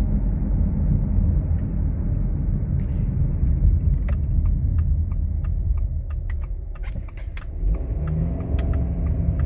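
Steady low in-cabin rumble of a Subaru Outback driving at about 40 mph, from tyres and engine. Scattered light clicks and taps come in from about three seconds on.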